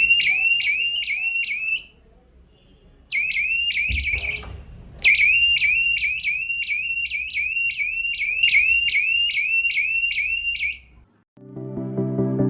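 Homemade door security alarm's electronic buzzer sounding a high warble of rising chirps, about three a second, in three bursts that start and stop abruptly. A soft knock comes between the second and third bursts, and background music starts near the end.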